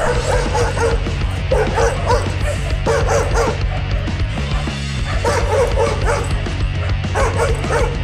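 A golden retriever and a small dog barking and yipping at each other in short bursts, about one every second, over background music with a steady bass line.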